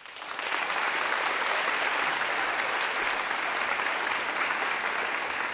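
Audience applauding, swelling up within the first half second and then holding steady.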